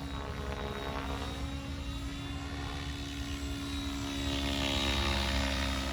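Oxy 5 HF electric RC helicopter flying, its rotor and motor whine held at a steady pitch by the governor, with the pitch bending up and down as it manoeuvres and passes. It grows louder about four seconds in.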